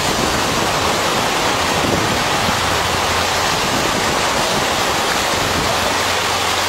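Steady rushing noise of surf on a beach.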